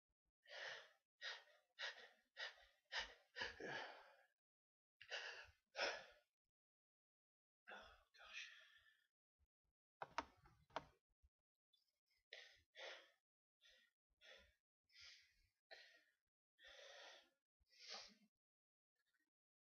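A person's short, breathy gasps and breaths, about twenty in quick succession with a quiet gap of about two seconds near the middle: someone on the verge of sneezing.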